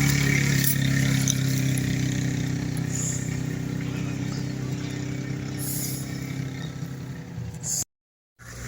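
An engine running steadily with an even, pitched drone that gradually fades, then a brief dropout near the end before a quieter drone returns.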